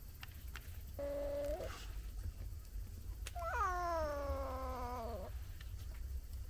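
Domestic cat meowing twice: a short call about a second in that turns upward at its end, then a longer meow that falls in pitch.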